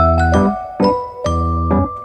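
Background music: a light, bouncy keyboard tune with short plucked-sounding notes over a bass line, about two notes a second.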